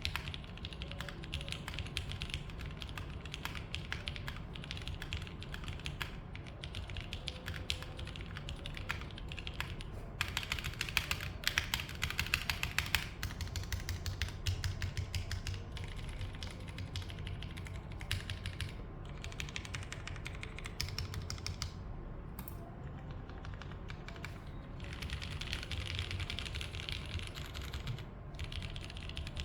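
Typing on a Matrix Corsa mechanical keyboard fitted with franken switches (Cherry bottom housing, Gateron Ink V1 stem, Gateron Milky top): a dense, continuous run of keystroke clacks, quicker and louder for a few seconds just before the middle.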